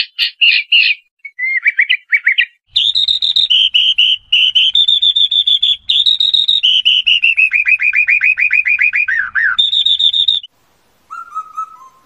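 A male Chinese hwamei singing a rapid series of short, loud notes, which gives way about two and a half seconds in to a caged skylark's long, unbroken song of fast trills and buzzy runs, with a low rumble underneath. Near the end the first lower whistled notes of an Indian (four-note) cuckoo begin.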